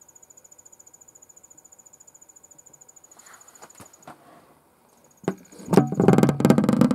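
A cricket chirping in a fast, even, high-pitched trill, stopping about four seconds in. Near the end a loud thump, then over a second of loud knocking and rustling as the camera is moved.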